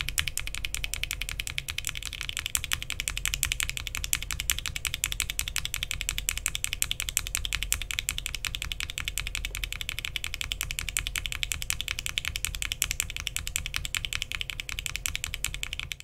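Fast, continuous typing on a mechanical keyboard with linear switches built from UHMWPE stems, Alpaca bottom housings, NK Cream top housings and 67 g long springs, in a Bakeneko60 case with an FR4 plate, case foam and PBT keycaps. The keystrokes run as a dense, even stream of clicks and stop suddenly at the end.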